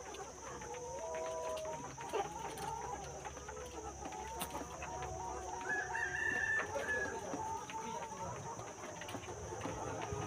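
A flock of chickens clucking, with a rooster crowing once about six seconds in.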